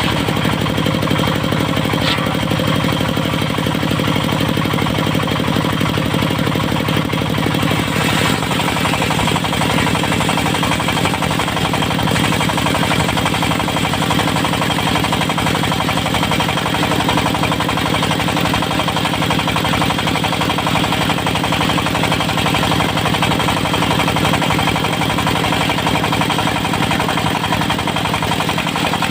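Diesel engine of a portable circular-blade sawmill running steadily with a fast, even beat.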